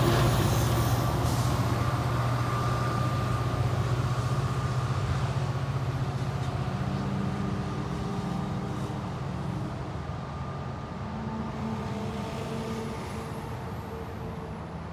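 NJ Transit diesel locomotive's engine drone as the passenger train pulls away, fading steadily as it recedes.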